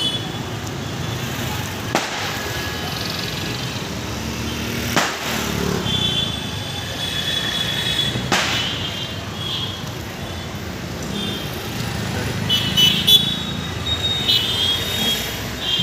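Steady street traffic with sharp firecracker bangs about two, five and eight seconds in, and several short high-pitched toots in the second half.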